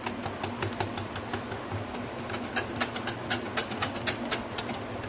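Wire whisk beating thin gram-flour batter in a glass bowl, the wires clicking and scraping against the glass in a rapid, irregular rhythm.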